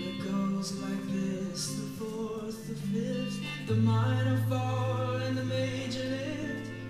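Recorded music playing: a song with a singing voice over held notes, and a deep low note that comes in a little over halfway through.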